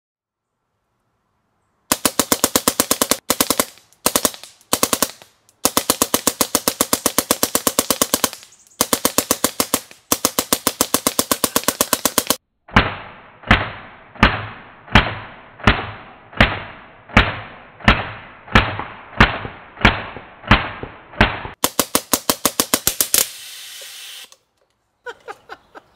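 Full-auto, belt-fed air-powered pellet gun running on 3000 psi air, firing long bursts of very rapid shots. Partway through, the firing breaks into short, evenly spaced bursts about one every 0.7 s, then ends with one more fast burst.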